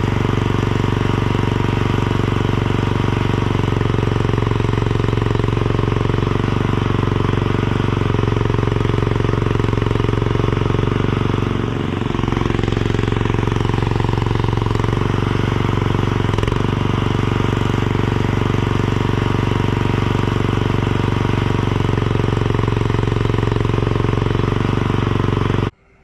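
Tractor engine running steadily under work, with a brief drop in engine speed about halfway through. It cuts off suddenly just before the end.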